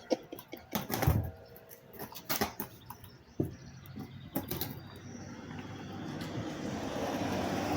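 Sharp metallic clicks and knocks of a chainsaw chain and bar being handled while the chain is worked onto the bar. About halfway through, a low steady hum comes in and grows louder.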